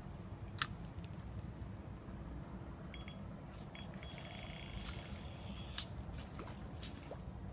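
A high-pitched electronic tone sounds briefly about three seconds in, then holds for about two seconds before stopping, over a low steady rumble with two sharp clicks.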